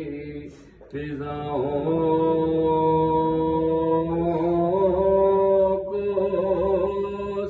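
A man's unaccompanied voice chanting an Urdu devotional salam into a handheld microphone, drawing out long held notes. It breaks off briefly just before a second in, then resumes and steps up in pitch around the middle.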